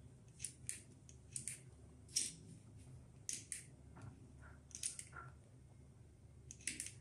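Bare wire ends tapped again and again on a lithium power-tool battery pack's terminals, linking a good pack to a dead one: faint, irregular clicks and scratches, often in pairs about a second apart. The tapping is meant to lift the dead pack's voltage so that it will take a charge again.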